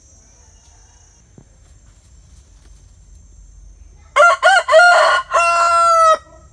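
A rooster crowing once, loud, starting about four seconds in: a few short up-and-down notes, then a long held final note.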